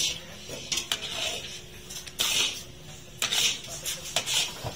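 Long metal spatula scraping and scooping crumbly sohan halwa mixture around a large iron karahi, in repeated strokes about a second apart with clinks of metal on metal.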